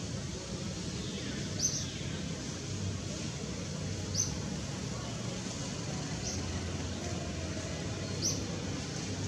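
A small bird gives a short, high chirp about every two seconds over a steady low rumble.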